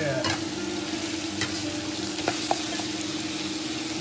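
Lamb stir-frying in a wok over a coal fire: steady sizzling, with the metal ladle scraping and clinking against the wok a few times, over a steady low hum.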